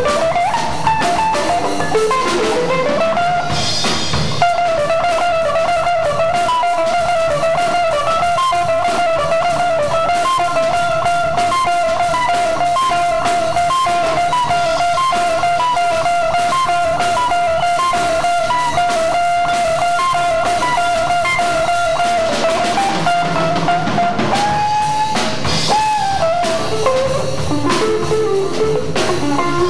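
Live jazz band playing: an electric guitar holds one long sustained note for about twenty seconds over a drum kit and bass, then moves on to shorter notes that bend upward near the end.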